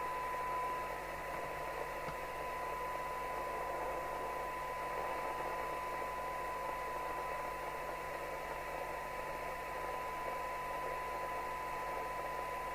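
Audioline PT341 FM CB radio's receiver reproducing a steady, pure test tone over a constant hiss as it picks up a tone-modulated signal from a signal generator during IF alignment.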